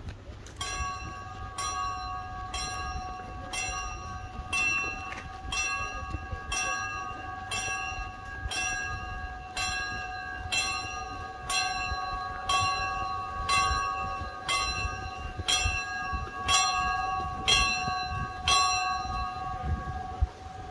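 A bell struck steadily about once a second, some nineteen strokes, its tone ringing on between strokes and dying away after the last one near the end.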